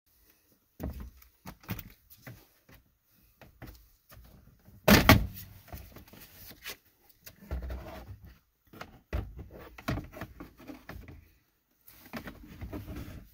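Clicks, scrapes and knocks of a hand tool undoing the 8 mm bolts of the plastic lower dash panel under a car's steering wheel, heard inside the cabin, with one louder clunk about five seconds in.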